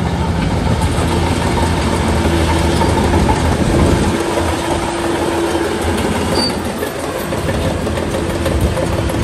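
Shantui DH17C3 crawler bulldozer working: its diesel engine running steadily under load, with the clatter of its steel tracks.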